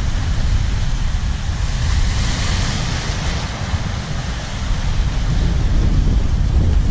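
Surf washing in over a shallow rocky reef, with one wash swelling about two to three seconds in, and wind buffeting the microphone with a steady low rumble.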